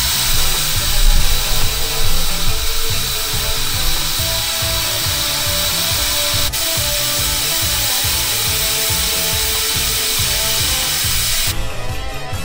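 Steam hissing steadily out of a Fissler pressure cooker's release valve as it is depressurised, stopping about a second before the end once the pressure is down. Background music with a steady low beat plays underneath.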